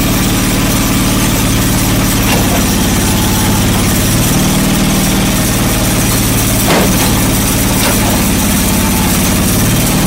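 John Deere 445 garden tractor's liquid-cooled V-twin engine idling steadily, its note shifting slightly about four seconds in, with a single click a little before seven seconds.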